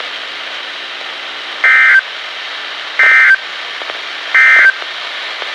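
NOAA Weather Radio's SAME end-of-message data tones: three short, identical bursts of warbling digital tone, about a second and a half apart, over steady radio hiss. They mark the end of the emergency alert broadcast.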